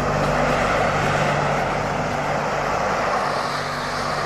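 Harrier jump jet hovering, its Rolls-Royce Pegasus engine at full power, giving off a steady jet noise with a low drone underneath.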